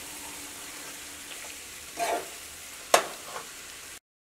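Raw chicken pieces, egg and masala frying gently in a stainless steel pan on low heat, a steady soft sizzle as they are stirred with a metal spoon. About three seconds in, the spoon gives a sharp clink against the pan, and the sound cuts off suddenly near the end.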